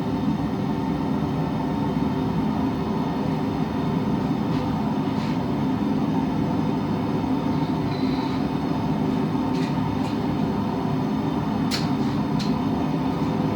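Steady roar and hum of a running forge, with a few faint light clicks, about six, scattered through it.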